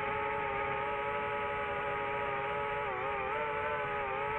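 DJI FPV drone's motors and Master Airscrew Ludicrous propellers whining in flight: a steady multi-toned hum whose pitch wavers up and down from about three seconds in.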